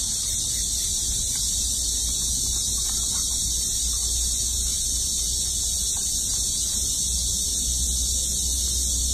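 A steady high-pitched hiss over a low hum, unchanging throughout, with a few faint short sounds in the middle range.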